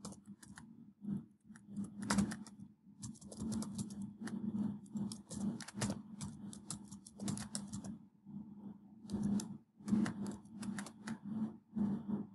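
Computer keyboard being typed on: quick, irregular runs of key clicks, with a short pause about eight seconds in.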